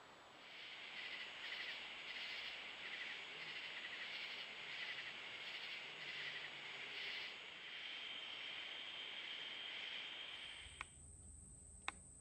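Rhythmic high-pitched chirping from a chorus of small calling animals, pulsing about twice a second, with a steadier high note over the last few seconds. It cuts off about ten and a half seconds in, and two sharp clicks follow.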